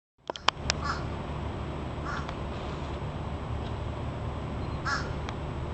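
Crows cawing, three short caws at about one, two and five seconds in, over a steady low background rumble. A few sharp clicks right at the start.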